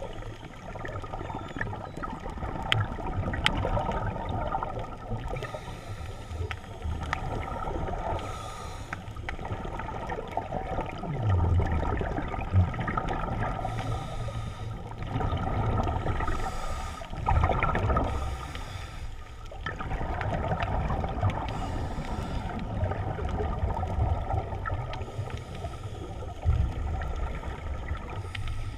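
Muffled underwater rushing and rumble as a diver swims, water moving over the camera, swelling and fading every few seconds, with scattered faint clicks.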